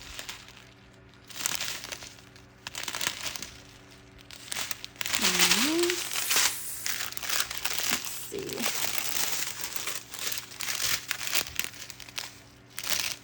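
Small plastic bags of diamond-painting drills crinkling as they are handled and flipped over, in irregular bursts that are loudest about five seconds in. A brief hum of voice comes near the middle.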